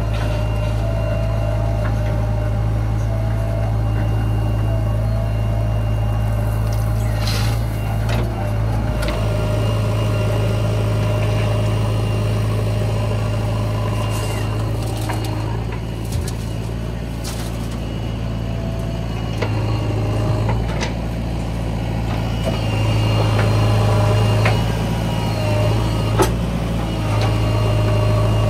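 Diesel engine of a JCB 3DX backhoe loader running steadily at work, with a few sharp knocks and clanks from the machine.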